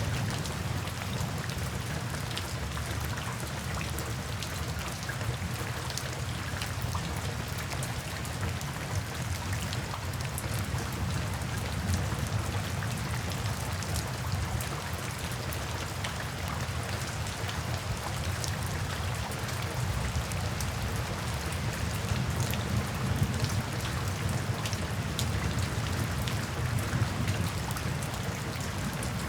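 Steady rain falling, with many individual drops ticking sharply against a surface over a steady low rumble.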